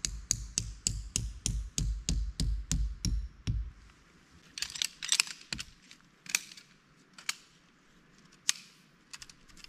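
Tent stake being hammered into the forest floor: a quick, even run of about four blows a second, each a sharp knock with a dull thud, that stops after about three and a half seconds. Then a short scuffle of handling and a few single clicks.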